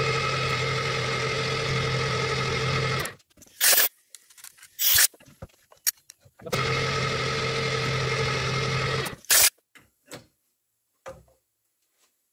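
An electric motor on the milling setup runs steadily twice for about three seconds each, with a low hum and a steady whine, stopping abruptly each time. Short sharp noises come between the two runs and just after the second.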